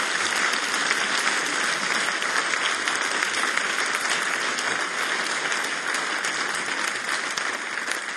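Audience applauding steadily, a dense, even clapping from a full room.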